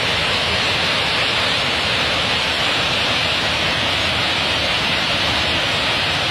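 Water pouring over a stone weir into a churning pool below: a steady, unbroken rush.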